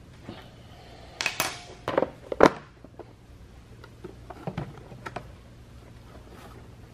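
Hard clicks and clattering knocks from hand work on a chainsaw, a ratchet and the plastic top cover being handled. The loudest knocks, with a brief metallic ring, come about one to two and a half seconds in, and lighter clicks follow as the cover is fitted.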